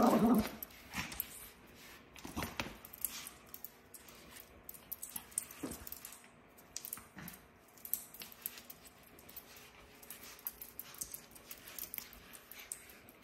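Yorkshire terrier growling briefly at the start, then playing with a plush toy: many short clicks and scuffs of its claws and paws on the hardwood floor as it shakes and drags the toy.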